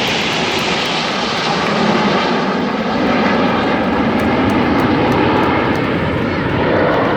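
RCAF Snowbirds' CT-114 Tutor jets flying past, a loud, steady jet roar that swells a little after about two seconds.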